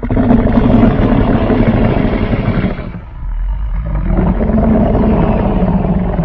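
Sound-designed fictional dinosaur roar, layered from big-cat, bear and dinosaur recordings: a long, deep roar that starts suddenly, dips briefly about three seconds in, then swells into a second long roar.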